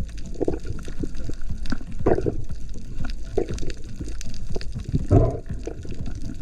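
Water moving and gurgling, with bubbly surges about half a second, two, three and a half and five seconds in, over a low rumble and many small crackling clicks.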